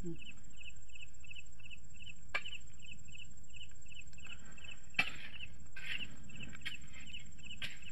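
Crickets chirping steadily, about three chirps a second, over a thin steady high tone. Two sharp knocks come, one a little over two seconds in and another about five seconds in.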